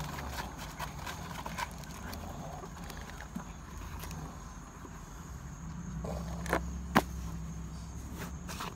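Hands handling and lacing a worn suede Timberland boat shoe: soft rustling and small scattered clicks, with a couple of sharp taps about six and seven seconds in, the second the loudest.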